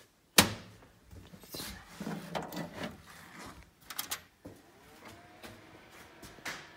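Computer hardware being handled and plugged back in. A sharp plastic click about half a second in is the loudest sound, followed by scraping and knocking, a couple of clicks about four seconds in, and another knock near the end.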